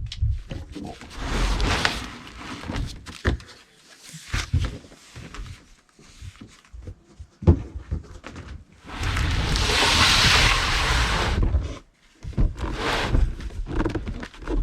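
Handling noises: scattered knocks and thumps, with a loud scraping rustle lasting a couple of seconds about nine seconds in.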